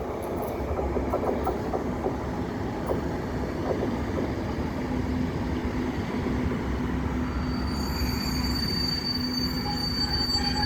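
A pair of Class 73/9 locomotives running in with a steady diesel drone, wheels clicking over rail joints in the first few seconds. A thin high squeal from the running gear joins about eight seconds in as the train slows.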